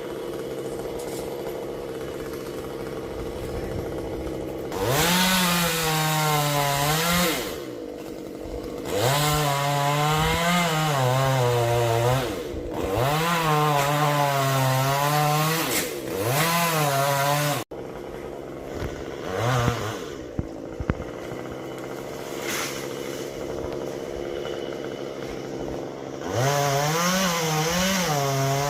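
Two-stroke STIHL chainsaw idling, then run up to full throttle in repeated stretches of a few seconds, its note sagging and wavering as the chain cuts into coconut wood. It falls back to idle between cuts. It idles for several seconds, with one short rev, before opening up again near the end.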